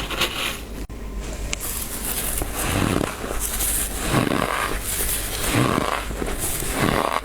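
Thick, soft frost from a humidifier crunching and rasping under repeated hand strokes, a swell about every second and a half.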